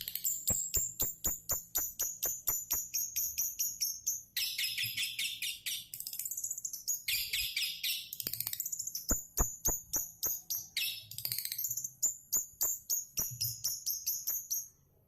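Long-tailed shrike (cendet) singing a fast, chattering song: sharp repeated notes at about six a second, broken by dense, high trilling phrases. The song stops just before the end.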